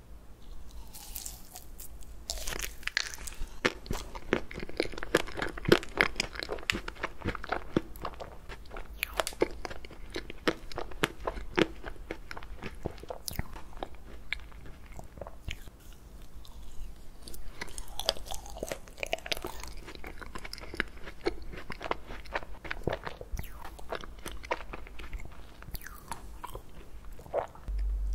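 Close-up mouth sounds of chewing a mouthful of ice cream cake: rapid small crunches and crackles in two busy bouts, with a quieter stretch between them.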